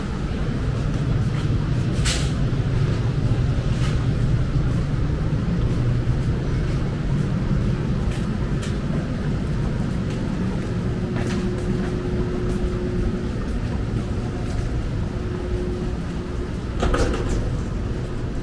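City street traffic: a steady low rumble of vehicle engines, with a sharp knock about two seconds in and another near the end.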